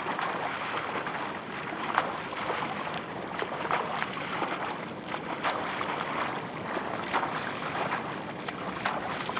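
Moving water and wind noise on the microphone, with scattered small splashes or knocks.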